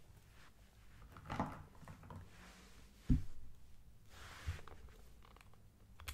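Close-miked handling of a paper sketchbook and pencil: soft swishes and rustles of paper with small clicks, and one dull thump about three seconds in.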